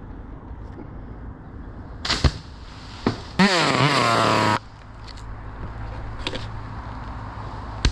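Two sharp knocks, then a chainsaw bursts into a short spell of revving, its pitch wavering up and down, and drops suddenly to a steady idle.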